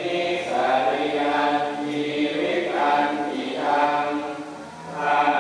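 Deep male voices chanting together in unison, in long held phrases with a few short breaks: Buddhist monks' chant.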